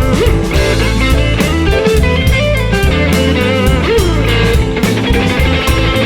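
Blues-rock band playing an instrumental passage: an electric guitar lead with bent notes over bass and a steady drum kit beat.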